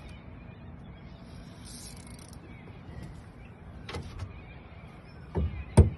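Three short knocks over a steady low background noise: a light one about four seconds in, then two heavier thumps close together near the end, the last the loudest.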